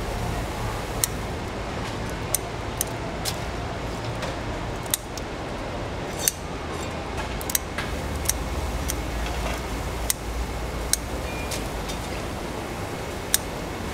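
Kitchen shears snipping through mantis shrimp shell: a dozen or so sharp clicks at uneven intervals, about one a second, over a steady low background hum.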